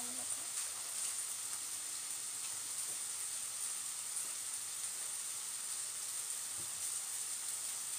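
A steady high hiss with a few faint scattered clicks.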